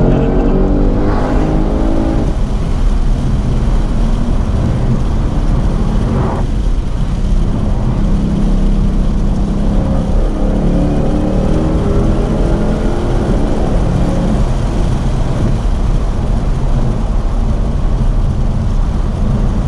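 Supercharged V8 of a Ford Mustang Shelby GT500 with a JLT open-element cold air intake, running under load on the road. Its pitch climbs as the car accelerates, drops back as it changes gear, and climbs again several times.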